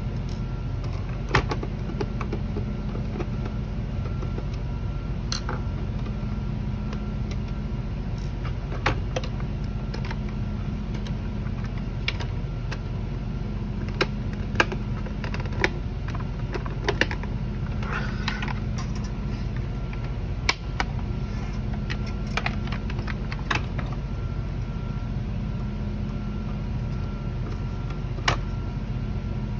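Scattered sharp plastic clicks and taps from handling and screwing together the body of a toy radio-controlled tank, over a steady hum.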